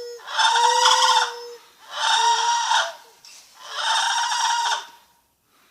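Lar gibbon calling: three loud calls, each just over a second long, with a steady hoot held in between them.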